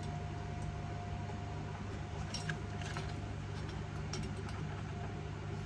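Welding machine humming steadily with a thin constant tone over it, and a few light clicks and taps of metal being handled.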